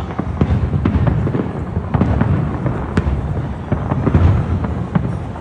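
Fireworks display: a rapid string of sharp cracks and pops over a continuous low booming rumble, with one especially sharp crack about three seconds in.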